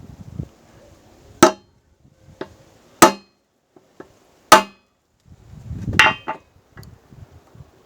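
A hammer striking a punch on the pivot rivet of a pair of long-nose pliers, landing four sharp, ringing metal blows about a second and a half apart, with lighter knocks between them. The rivet is being peened to take the side-to-side play out of the worn joint.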